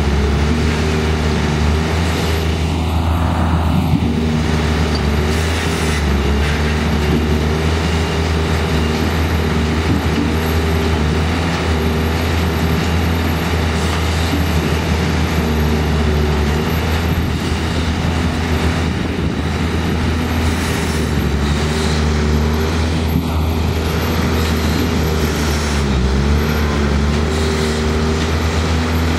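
Engines of several machines running together, a loud steady drone with a few pitches wavering slightly.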